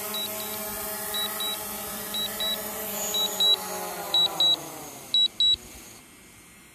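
Small quadcopter drone's propeller motors humming steadily, then winding down, falling in pitch and fading as the drone sets down on the gravel. Pairs of short high beeps repeat about once a second, loudest near the end.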